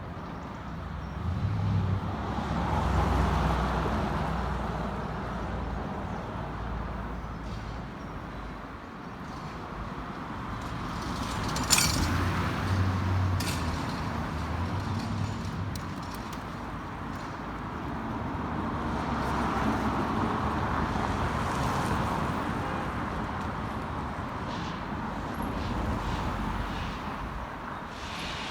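City street traffic: vehicles passing, rising and fading in slow swells, with one sharp click near the middle.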